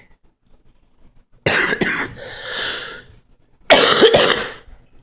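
A person coughing twice, loud and close, about two seconds apart.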